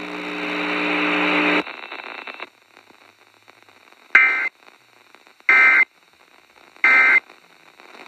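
Three short, loud digital data bursts about a second and a half apart: the SAME end-of-message tones that close an Emergency Alert System weather broadcast, heard over radio hiss. Before them, a steady low hum with hiss runs for about a second and a half, then cuts off.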